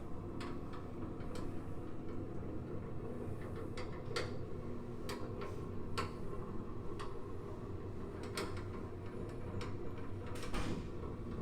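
Scattered light clicks and taps, spread irregularly, over a steady low room hum: handling noise as the patient and equipment are settled on the treatment table.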